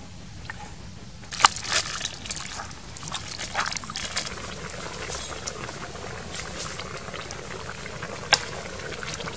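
A spoon scraping and stirring wet chopped tomato and chili in a clay bowl, with a run of sharp clinks, then a wok of soup bubbling at the boil over a wood fire, with one sharp click near the end.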